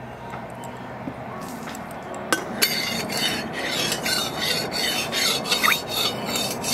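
A utensil scraping and rubbing in a kadai: a sharp click about two seconds in, then quick rasping strokes.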